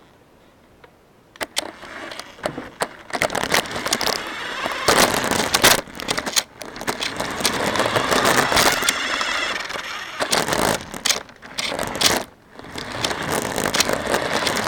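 Rattling, scraping and crackling from an action camera mounted on a small RC car as the car moves, starting about a second in and coming and going in uneven loud stretches.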